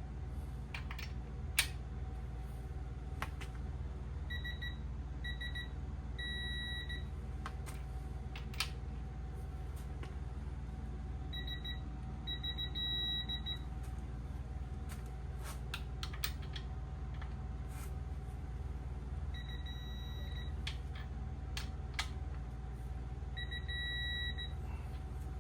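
Digital torque wrench beeping as main bearing cap bolts are tightened to 30 foot-pounds: four runs of short high beeps, each ending in a longer steady beep as the set torque is reached. Scattered clicks over a steady low hum.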